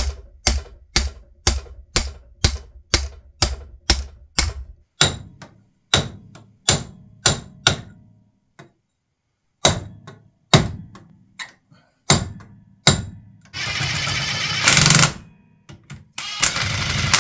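Hammer blows, about two a second, drive a carrier bearing down onto a differential case through a steel driver tube. They slow to a few single knocks, then stop. Near the end a cordless impact wrench runs twice in short rattling bursts, tightening the bearing cap bolts.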